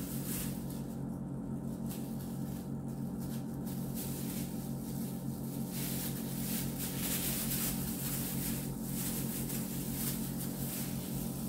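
Thin disposable plastic gloves crinkling as they are pulled onto the hands, in light intermittent rustles, over a steady low machine hum.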